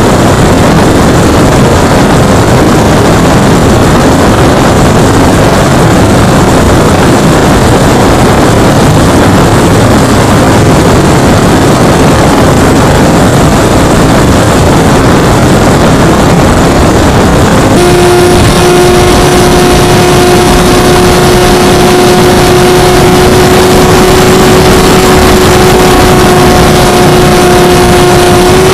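Loud, dense rush of wind and pusher-propeller noise picked up by the Mobius camera on board a Skyhunter RC plane in flight. About eighteen seconds in, a steady two-pitch hum from the electric motor joins the rush and holds.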